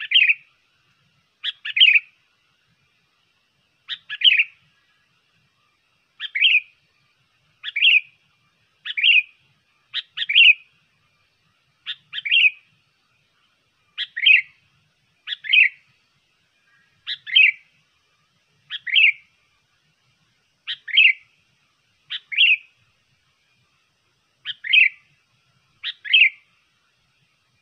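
Sooty-headed bulbul (kutilang) calling over and over as a lure call: short, loud phrases, one every second or two.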